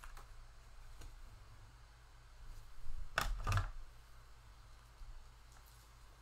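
Trading cards and packs being handled by hand: a few light clicks, then a short rustle in two strokes about three seconds in.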